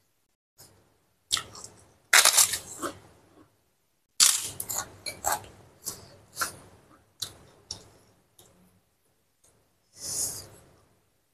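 Crunchy krupuk crackers being bitten and chewed close to the microphone: irregular bursts of crisp crunching, loudest about two and four seconds in, with a last short crackle near the end.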